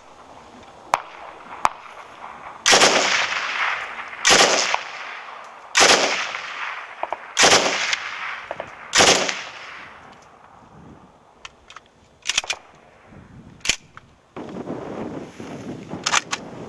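Baryshev AB assault rifle in 7.62x39 firing five single shots about a second and a half apart, each with an echoing tail, followed later by a few fainter, sharper cracks.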